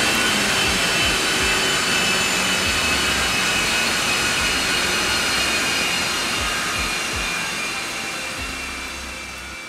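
Volkswagen Golf R's turbocharged 2.0-litre four-cylinder running hard on a chassis dynamometer during a power pull: a steady, loud mechanical rush with a high whine over it. It fades away over the last few seconds.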